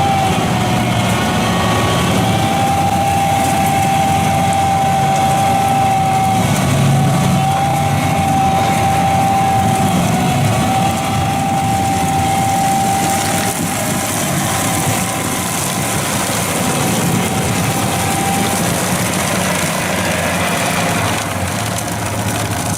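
Diesel engine of heavy machinery running steadily, with a steady high whine over it that fades out about halfway through.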